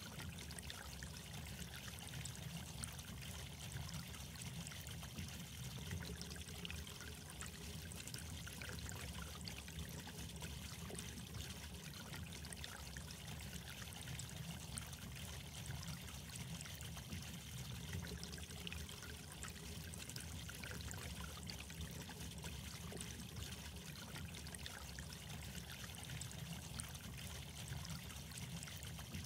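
Steady trickle of running water, unbroken and even.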